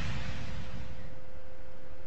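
A hiss of noise fading down, with a faint steady tone underneath: a quiet noise transition in an electronic dance music track.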